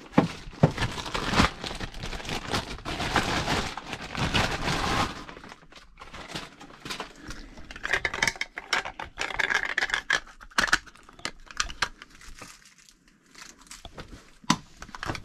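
Packaging of a new RV shower faucet being torn open and crinkled: a dense crackling rush for about five seconds, then quieter scattered crinkles and clicks.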